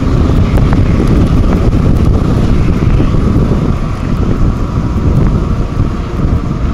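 Wind buffeting the microphone of a camera carried on a moving bicycle: a loud, steady low rumble.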